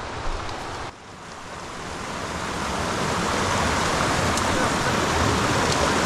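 A few footsteps on the trail. About a second in the sound cuts off abruptly, and a steady rushing noise fades in, growing louder over the next couple of seconds.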